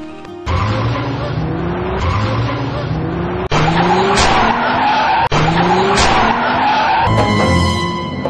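Car engine revving up in rising sweeps that repeat every second and a half or so, over a rushing noise of tyres on the road, with two brief cut-outs in the middle. Near the end a held chord of music comes in.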